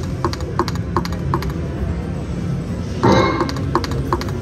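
Video slot machine spinning its reels: a steady run of short electronic ticks, two or three a second, then a louder burst of chiming tones about three seconds in as the reels land, over the low hum of casino noise.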